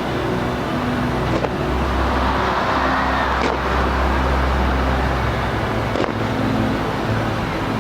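Steady outdoor city noise, with a low engine-like rumble swelling for a few seconds in the middle, and three faint distant thuds that may be fireworks.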